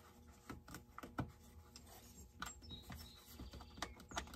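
Light, irregular clicks and taps of a hand tool and small parts against a chainsaw's housing as it is worked apart by hand.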